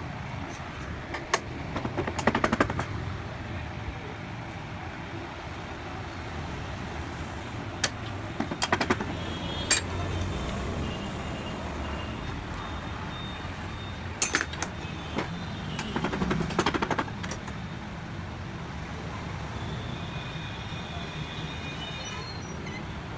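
Metal clinks and short rattles of shock absorber parts and hand tools being handled, in several brief clusters, over steady background traffic noise.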